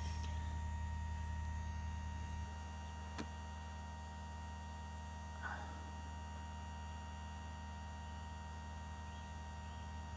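Electric chain-sharpening grinder's motor humming steadily, a little quieter from about two and a half seconds in, with one faint click about three seconds in.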